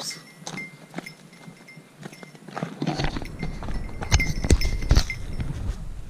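Hiking footsteps crunching on dry leaves and gravel on a steep trail. About three seconds in a low rumble sets in, and heavier thudding steps follow, the loudest of them a little after four and at five seconds.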